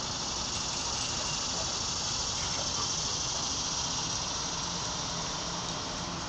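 Steady, high-pitched hiss of outdoor background noise, with no distinct sound standing out.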